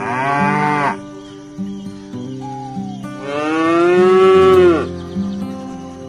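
Cattle mooing twice. The first moo is short and falls away within the first second. The second is longer and louder, from about three to five seconds in.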